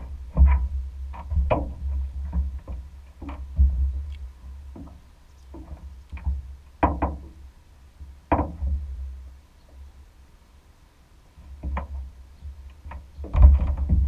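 Irregular knocks and thumps on a boat deck, about one a second, as the angler moves about and handles his rod, over a low steady rumble; the knocks thin out for a couple of seconds near the middle and bunch up again near the end.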